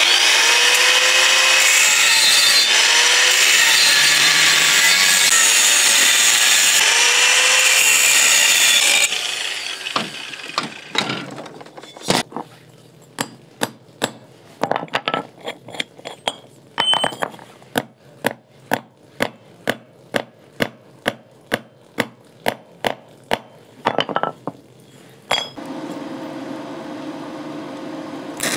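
Angle grinder cutting through a steel square tube, with a loud steady cut and a pitch that wavers, stopping about a third of the way in. After that comes a long run of sharp knocks, about two a second, and then a steadier low hum near the end.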